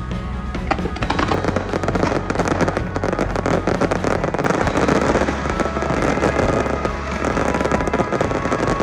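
Fireworks going off in a rapid, dense barrage of bangs and crackles, over music playing with the show.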